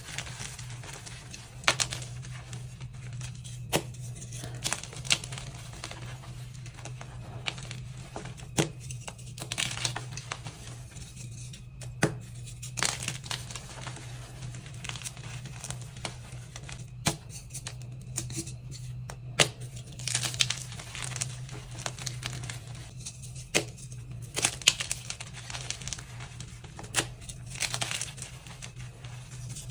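Blocks and chunks of dyed gym chalk being crushed: sharp crunchy cracks and crumbling at irregular intervals, over a steady low hum.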